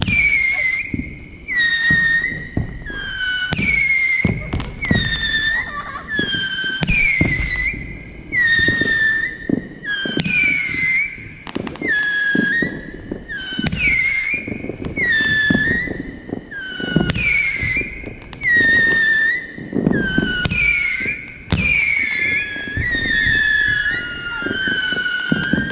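Whistling firework shots fired in a steady rapid series, a little more than one a second, each a shrill whistle that dips in pitch over about half a second, with a low thud from each launch.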